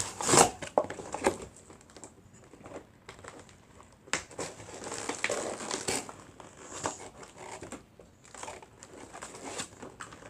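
Plastic packaging of a Nerf toy crinkling and crunching in irregular bursts as it is squeezed and pulled by hand in an attempt to tear it open, loudest about half a second in.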